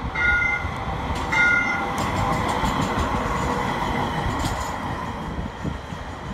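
Brookville Liberty streetcar giving two short horn blasts about a second apart, then passing close by on its street-running rails, its rumble swelling and fading as it goes.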